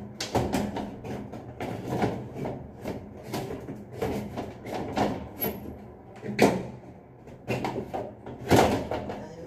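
Metal louvered ceiling light panel being handled and pushed up into its frame: irregular sheet-metal knocks and rattles, the loudest about six and a half and eight and a half seconds in, over a steady low hum.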